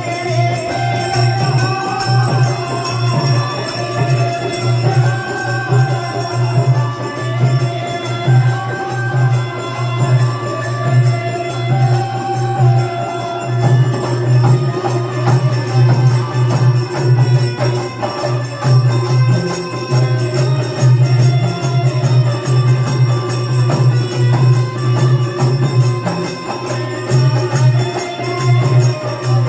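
Hindi devotional bhajan music with no words heard: a melody line over a steady, loud rhythm accompaniment.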